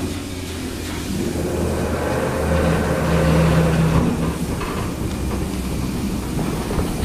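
Rail-mounted crane's engine running steadily as it hoists a machine tool on its hook, working harder and louder from about two and a half to four seconds in.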